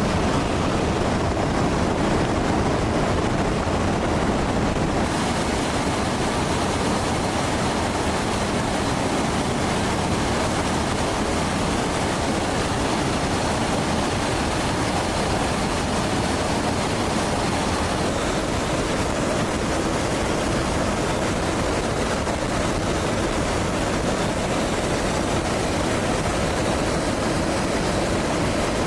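Steady aircraft noise: an even roar of engines and rushing air, with no separate events, a little brighter from about five seconds in.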